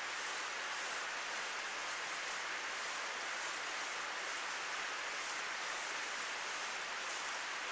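Heavy rain falling steadily: an even, unbroken hiss with no single drops standing out.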